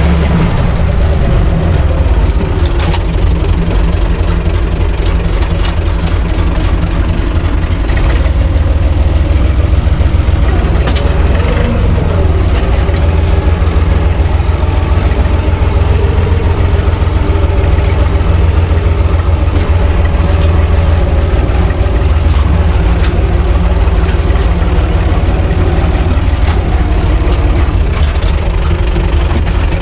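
U445 DT 4x4 tractor's four-cylinder diesel engine running steadily under way, heard loud from inside the open cab, with a few sharp clicks and rattles.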